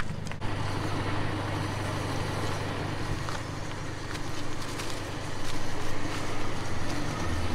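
A 4WD ute's engine idling steadily, with the scuff of footsteps and winch rope being dragged out by hand over a dirt track.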